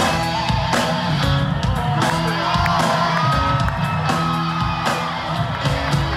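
Live rock band playing on a festival stage, with electric guitar, bass and drums, heard as recorded from the audience.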